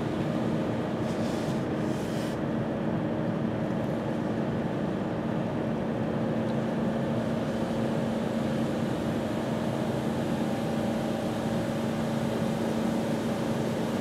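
PDQ LaserWash 4000 touchless car wash spraying pre-soak over the car, heard from inside the car as a steady hiss of spray with an even machine hum beneath it.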